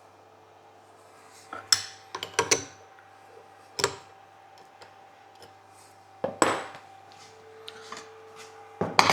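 Metal tools and parts clinking and clattering in short bursts, a cluster of quick clanks about two seconds in and a few more later, over a faint steady machine hum.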